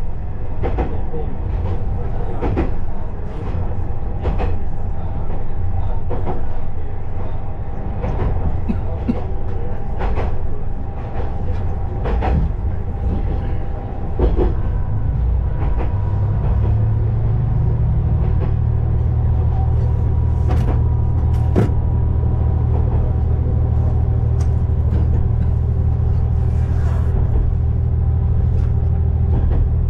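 KiHa 20-series diesel railcar running on jointed track: its wheels click over the rail joints every second or so against the drone of its DMH17 diesel engine. About halfway through the engine drone grows louder and holds steady, with fewer clicks.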